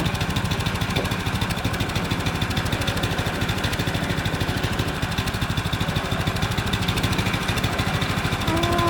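Sawmill engine idling steadily with an even, rapid pulse.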